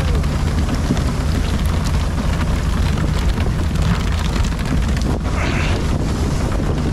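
A fishing boat's engine running at a steady drone under a constant hiss of water spray and wind.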